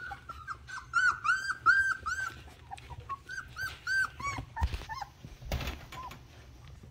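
Australian Shepherd puppies nearly four weeks old whining in a rapid string of short, high squeaks, loudest in the first half, then fewer and lower. Two short rustles come a little past the middle.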